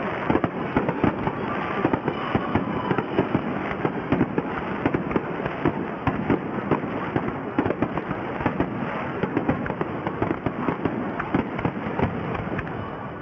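Aerial fireworks display: many shells bursting in quick succession, a dense barrage of bangs several a second with crackle between them, starting abruptly.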